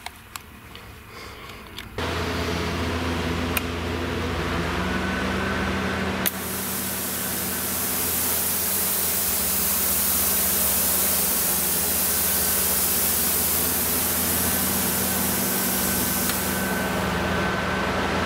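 Solar 40-amp plasma cutter switched on, a steady hum from its transformer and fan starting about two seconds in. About six seconds in a loud hiss of compressed air through the torch starts and runs for about ten seconds before easing off.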